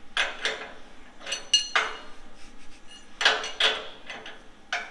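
Steel combination wrench clinking against the nut and steel leg of a plasma table's threaded leveling foot as it is turned: about ten irregular, sharp metallic clinks with a brief ring.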